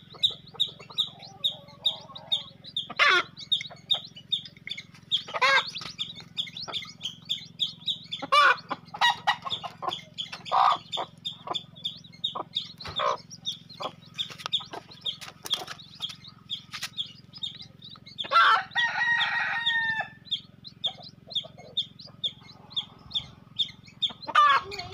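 Chickens clucking, with a loud call every few seconds, and a rooster crowing once about two-thirds of the way through. Under them runs a steady high peeping about three times a second.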